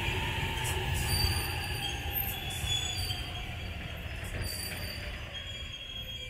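E657-series electric express train rolling past on the track, its wheels rumbling over the rails and fading steadily as the last car moves away, with a few faint high wheel squeals.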